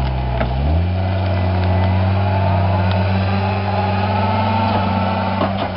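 Diesel engine of a John Deere compact track loader working hard while its tree puller rips out a small tree. The engine lugs down under the load in the first second, then picks back up and runs steadily at high revs as the tree is lifted. A few sharp clicks come near the end.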